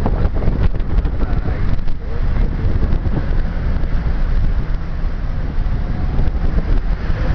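Wind buffeting the microphone over the steady rumble of a moving car.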